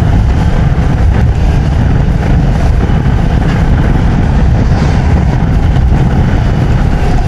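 CFMoto 650MT's parallel-twin engine running under way, mixed with wind and road noise into a steady, loud low rumble without a clear engine note.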